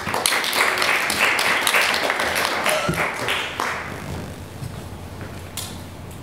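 Audience applause that dies away about four seconds in.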